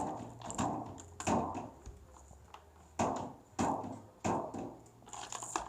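Baby bouncer knocking in a few short, irregular thumps as the baby bounces in it.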